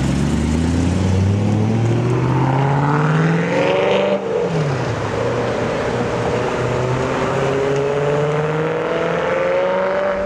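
A high-performance car engine accelerating: the revs climb for about four seconds, drop sharply at an upshift, then climb again more slowly through the next gear.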